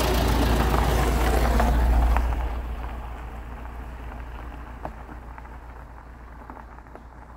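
A car driving slowly over loose gravel, its tyres crunching with a deep rumble underneath, loud at first, then fading steadily from about two seconds in as it moves away. A few faint clicks come late on.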